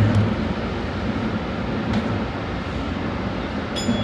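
Tsukuba Express electric train running at speed through an underground tunnel, a steady rumble of wheels on rail with a low thump at the start. A brief high tone sounds near the end.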